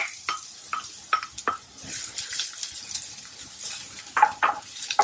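Wooden spoon scraping chopped onion out of a bowl and stirring it in a non-stick pan, with irregular sharp taps and clacks of wood on the bowl and pan edge. Under them is a light sizzle of the onion frying in hot coconut oil. The loudest clacks come as a pair about four seconds in.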